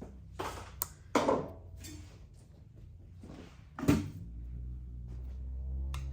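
Several separate knocks and clatters, as a bike and its parts are handled, the loudest about a second in and just before four seconds. A low steady hum follows over the last two seconds.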